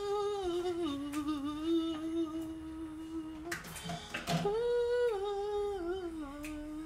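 A woman humming a slow tune in two phrases, each sliding down to a long held low note. A short noisy clatter about three and a half seconds in breaks the humming.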